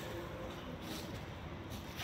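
Quiet outdoor background: a low steady hiss with a faint hum, and a couple of soft scuffs.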